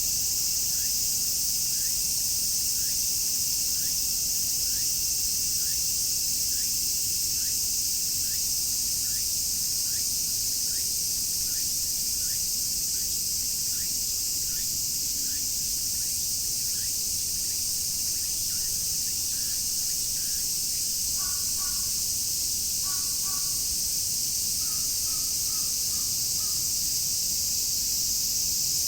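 Dense summer cicada chorus, a steady high-pitched drone. Over it a short chirp repeats about once a second for most of the time, and in the last third a bird gives a few groups of short, harsher calls.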